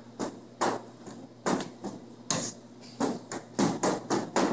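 Metal bench scraper chopping cold shortening into flour and striking a stainless steel worktable: a run of sharp knocks, irregular at first and coming faster in the second half. This is the stage of cutting the fat into the flour for flaky pie dough.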